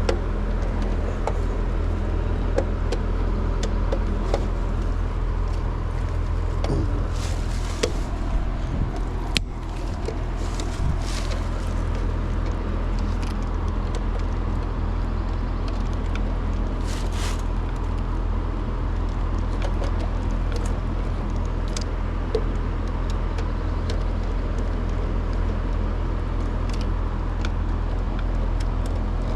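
Steady low hum of a Trane two-stage air-conditioner outdoor unit running, with scattered light clicks and taps of hands and tools working on its wiring.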